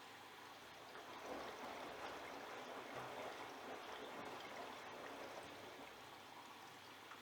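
Water running and splashing inside the drum of a Siemens iQ700 washing machine on its delicate/silk cycle with a duvet load. The sound swells about a second in and eases off again toward the end.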